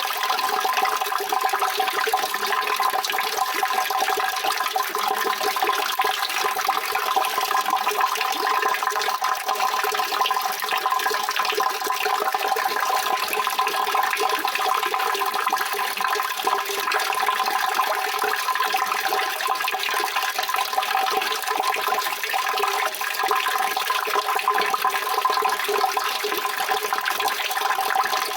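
Water running steadily without a break, an even rushing sound with a constant tone in it.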